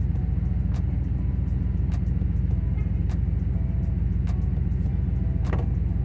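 Truck engine idling with a steady low rumble heard from inside the cab, a faint tick about once a second over it. About five and a half seconds in, the windshield wiper motor (a later GMT400 motor and board on the first intermittent setting) clicks and starts a sweep.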